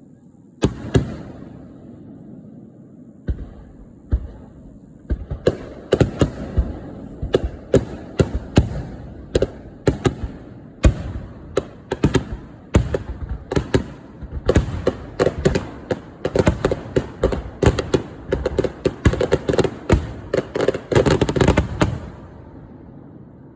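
Aerial fireworks bursting: a few separate bangs at first, then a fast barrage of overlapping bangs from about five seconds in, which stops shortly before the end.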